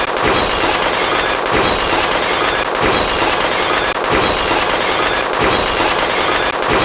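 Rapid, overlapping pop and explosion sound effects, crackling like firecrackers, with a heavier hit about every second and a quarter.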